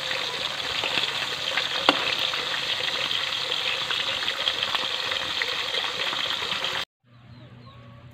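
Needlefish sizzling as they fry in oil in a metal wok, a steady hiss, with a metal spatula clinking against the pan about two seconds in. The sizzle cuts off abruptly near the end, leaving a much quieter background.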